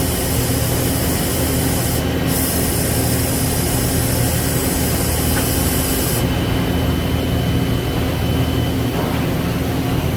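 Citizen K16E CNC Swiss-type lathe running its program dry, without coolant: a steady machine hum with its tool blocks moving. A high hiss comes in about two seconds in and stops about six seconds in.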